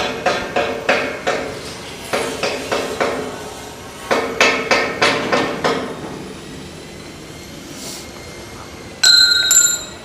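Hammer striking steel railing: ringing metal blows about three a second, in two runs with a short break between them. Near the end comes a brief loud, high-pitched squeal.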